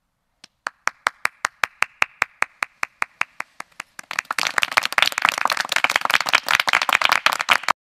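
One person clapping steadily, about five claps a second. About four seconds in a whole group joins in with dense applause, which cuts off suddenly near the end.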